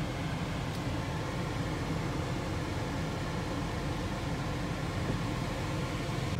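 Steady low rumble of a car rolling slowly with its engine running, heard from inside the cabin.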